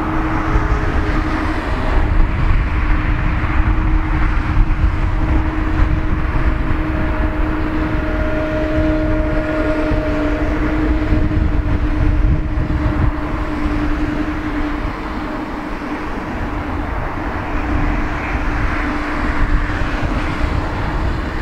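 Twin-engine jet airliner's engines running at low taxi thrust as it lines up for take-off: a steady hum with a constant tone over a low rumble.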